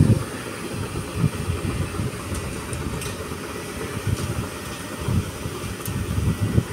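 Battery-powered ride-on road sweeper running as it drives along concrete with its side brush sweeping: an uneven low rumble with a faint steady high whine.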